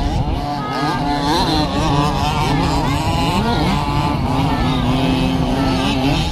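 Several 1/5-scale RC off-road trucks' small two-stroke petrol engines racing together, each revving up and down, so that many rising and falling buzzing pitches overlap.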